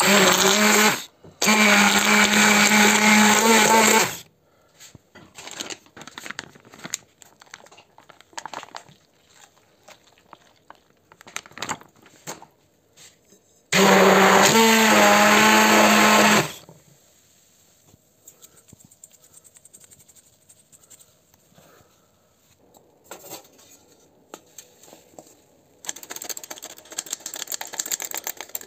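Scarlett 500W immersion blender whisking raw eggs in a bowl, run in three steady bursts: a short one, one of about three seconds, and another of about three seconds some fourteen seconds in, with faint clinks between. Near the end, a hand-crank flour sifter rasps steadily as flour is sifted in.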